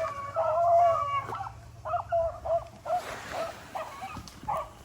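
A pack of rabbit-hunting hounds baying in overlapping, repeated calls, with one longer drawn-out call near the start: the dogs giving voice as they run a rabbit's trail.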